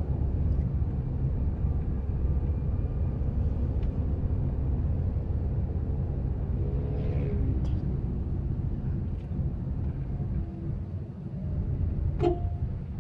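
Steady low rumble of engine and tyres heard inside a Suzuki Ertiga's cabin while it drives along a town street. A brief wavering pitched sound comes about seven seconds in, and a short sharp sound with a tone comes about twelve seconds in.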